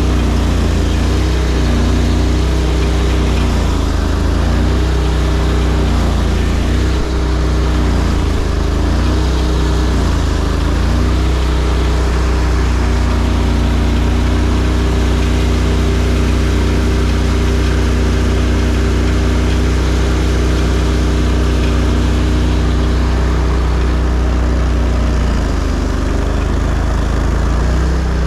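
ARGO amphibious ATV engine running under a rider's throttle with a steady low drone. Its pitch rises and falls through the first half and then holds steady.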